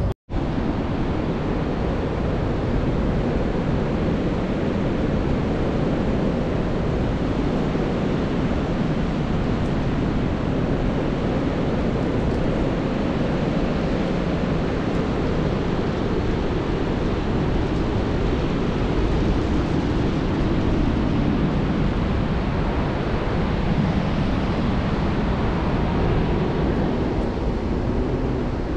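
Steady wind rushing and buffeting over a GoPro action camera's microphone in paraglider flight, with a split-second dropout right at the start.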